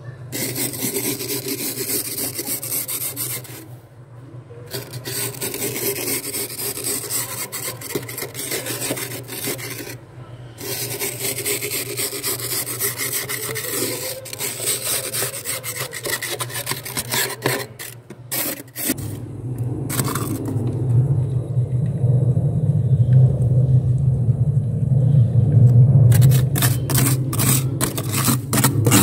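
A steel glass scraping thick, flaky freezer frost in long rasping strokes, with short breaks about 4 and 10 seconds in. Past the middle the sound turns duller and lower for several seconds, then ends in short quick scrapes.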